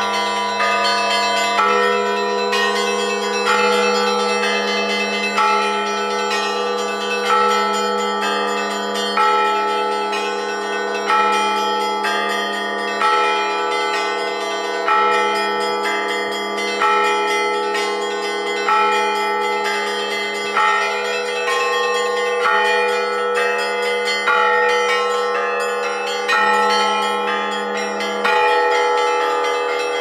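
Orthodox church bells rung by hand from a belfry, the clappers pulled by ropes: a heavy stroke about every two seconds over quicker, lighter strikes on smaller bells, all ringing together in a sustained hum.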